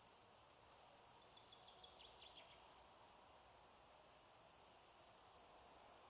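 Near silence: faint woodland ambience, with a short run of faint, high bird chirps about a second and a half in.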